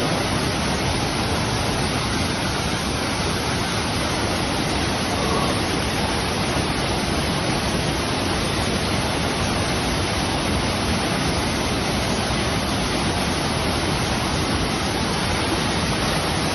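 Waterfall: water falling and splashing in a steady, loud rush with no change in level.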